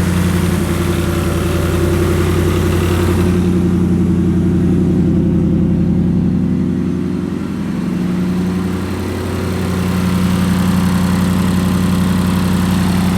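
Ford 5.0 Coyote V8, freshly fitted with a Whipple 3.0L supercharger, idling steadily after its first start-up with the blower. Its level dips briefly about seven and a half seconds in and again around nine seconds.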